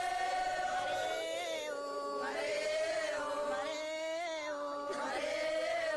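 A group of voices singing a chant together in unison, in short phrases of long, wavering held notes.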